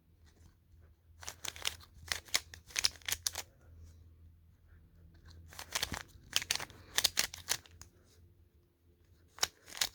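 Plastic Rubik's cube being turned by hand: three bursts of quick clicking turns with short pauses between them.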